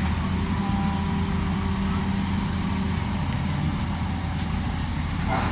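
Hitachi Zaxis 210F excavator's diesel engine running at a steady pitch, with a brief higher-pitched sound right at the end.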